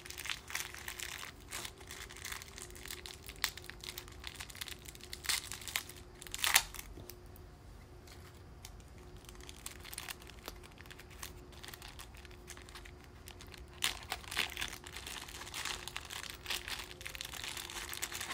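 Light rustling and small clicks of small electronic parts and a circuit board being handled on a workbench, with one sharper click about six and a half seconds in and a quieter stretch after it.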